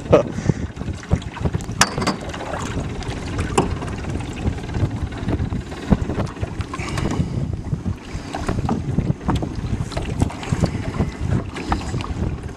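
Wind buffeting the microphone in a steady low rumble, with scattered clicks and knocks from handling a catfish in the boat.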